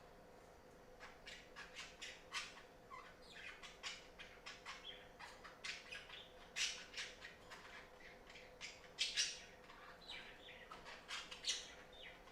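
Budgerigars chirping and chattering in a rapid run of short calls, starting about a second in, with a few louder calls near the middle and later on. A faint steady hum runs underneath.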